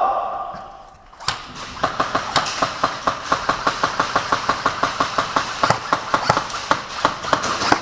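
Airsoft gun firing a long, steady string of sharp cracking shots, about four or five a second, starting about a second in.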